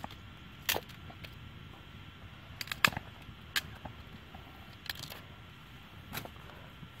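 Small fire of dry twigs crackling, with about eight or nine sharp, irregular pops, the loudest about three seconds in.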